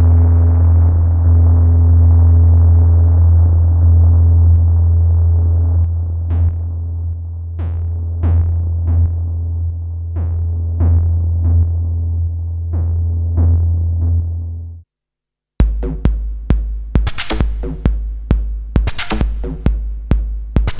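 Erica Synths Perkons Voice eurorack drum module playing a self-generating patch: a heavy low drone with a noisy texture, joined about six seconds in by sharp pings that fall in pitch. It cuts off about two-thirds of the way through, and after a short gap a sequenced electronic percussion pattern starts, a fast even run of sharp hits over deep low hits.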